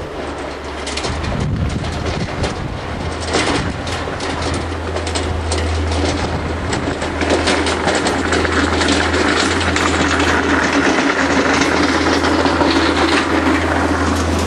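Avant compact loader's engine running while its front plough blade pushes and scrapes snow along a packed, icy road, with a constant low hum and many clicks and rattles. It grows louder as the loader approaches and passes close by near the end.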